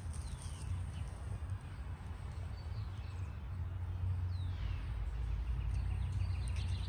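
A bird gives two downward-sliding whistled calls, one near the start and one about four and a half seconds in, over a steady low rumble.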